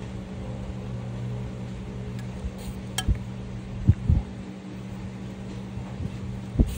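A steady low mechanical hum, with a few short low bumps about three, four and six and a half seconds in.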